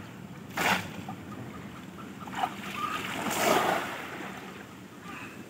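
Splashing in pond water as bamboo cone fish traps are plunged down and the fishers move through chest-deep water: one sharp splash less than a second in, a smaller one past two seconds, and a longer bout of splashing around three and a half seconds.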